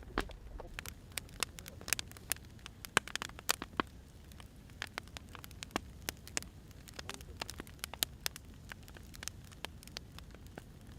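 Wood fire burning, crackling with irregular sharp pops and snaps over a low rumble.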